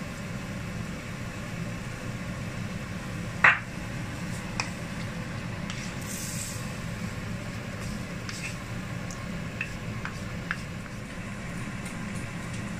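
Wooden spatula stirring chicken pieces in a wok, with light scrapes and taps against the pan and one sharp knock about three and a half seconds in, over a steady low hum.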